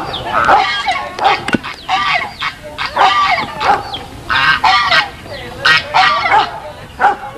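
Goose honking repeatedly, a string of short loud calls about one or two a second.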